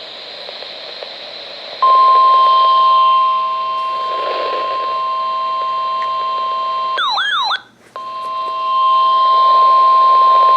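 NOAA Weather Radio warning alarm tone: a loud, steady single-pitch beep near 1 kHz. It comes in after about two seconds of faint radio hiss and is broken about seven seconds in by a brief warbling glitch and a moment's dropout before it resumes.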